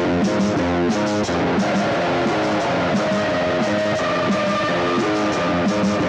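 Guitar strumming chords in a steady, even rhythm, with a long held higher note coming in about halfway through.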